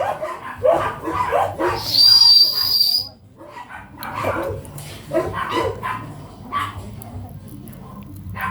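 A small dog barking and whining in short yips, with one loud, shrill, steady squeal about two seconds in that lasts about a second.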